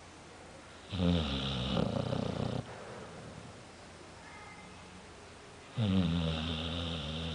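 A sleeping pet snoring: two long snores about five seconds apart, each lasting about a second and a half.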